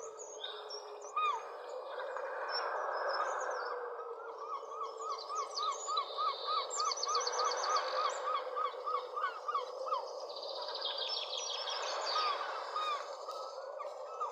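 Several wild birds calling over a steady background hiss. A long run of quick, repeated call notes, about three a second, lasts several seconds in the middle, with high chirps and trills above it.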